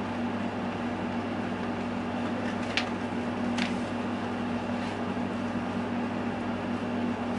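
A steady low hum with room noise, with a few faint short clicks about three seconds in from plastic forks against foil takeout trays.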